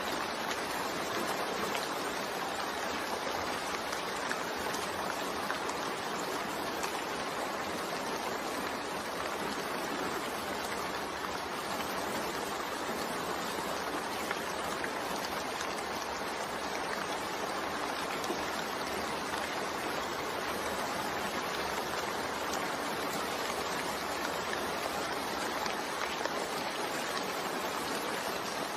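Continuous rain blended with white noise: an even, unbroken hiss with no separate drops or events standing out.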